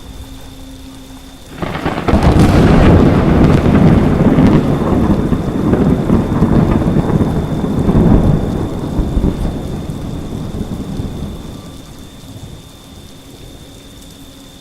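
A thunderclap breaks suddenly about a second and a half in and rolls on as a long rumble for roughly ten seconds before fading, over steady rainfall.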